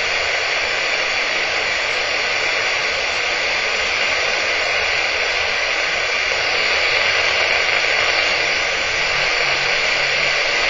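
RF/microwave detector alarm giving a steady, unbroken hiss, strongest in the upper middle range. It is set off by the RF field from the resonating ferrite core.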